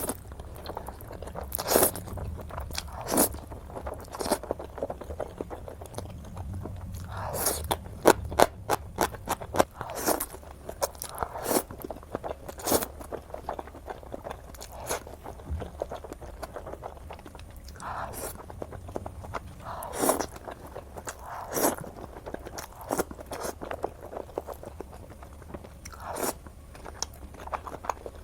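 A person biting and chewing crunchy food close to the microphone, in mukbang style: repeated sharp crunches, sometimes in quick runs, over a faint low hum.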